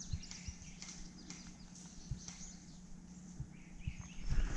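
Faint woodland ambience of birds chirping in quick, repeated short calls, with a few soft low thumps. A louder noise builds just before the end.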